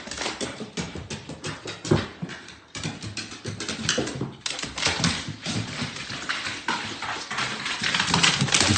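A dog moving about, making many quick, irregular clicks and taps.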